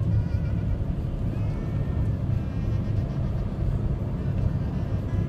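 Steady low rumble of a car driving in city traffic, heard from inside the cabin.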